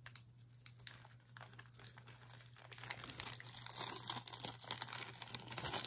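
Plastic zip-lock bag crinkling and rustling as it is handled, with small scattered clicks; faint at first, busier from about three seconds in.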